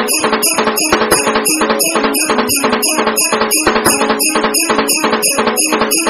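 Outro background music with a fast, steady beat of about four hits a second over a repeating pitched pattern.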